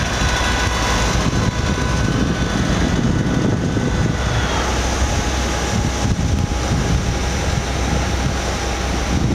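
Strong wind buffeting the microphone over the steady hum of an engine; the engine's pitch changes about four seconds in.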